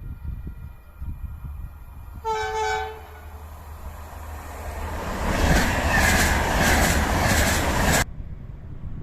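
A train horn gives one short blast, a driver's greeting. A train then passes close by: a loud rushing of wheels and air builds up and cuts off suddenly near the end.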